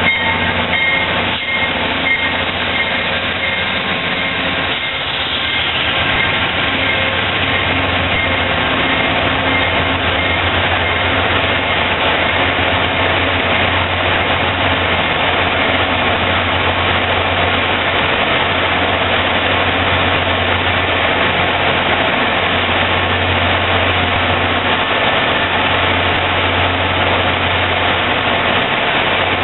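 Amtrak GE Genesis P42DC diesel locomotive and its passenger cars rolling slowly past, with wheels clicking over rail joints in the first couple of seconds. After that comes the steady low drone of the locomotive's diesel engine as the coaches go by.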